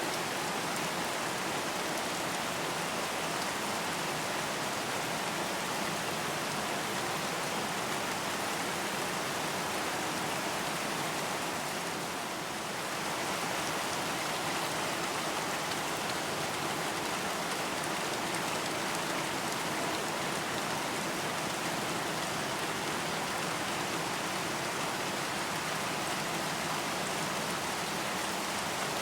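Steady rain falling, a dense even hiss of many raindrops, with a slight dip in loudness about twelve seconds in.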